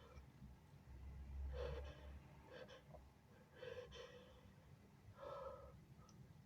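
A person's faint breathing: about four soft gasping breaths a second or so apart.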